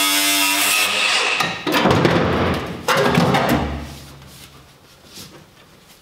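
Angle grinder cutting through the Mini's sheet-steel floor with a steady whine that stops about a second in, followed by two loud metallic bangs with clatter as the cut-out panel section is worked loose.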